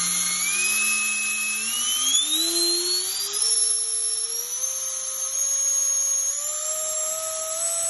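Taiwan Tornado all-metal 90 mm electric ducted fan with a 1920 kV brushless motor spooling up on a thrust test, its whine rising in pitch in steps as the throttle is slowly advanced, over a rushing of air through the duct.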